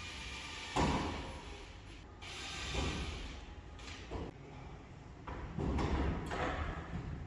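Partition installation work noises: a sharp knock about a second in, then several rough, noisy bursts of materials and tools being handled.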